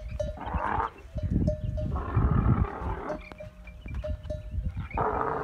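Dromedary camels mating in the rut: rough grunting and rumbling in repeated bursts of under a second each, over a continuous low rumble.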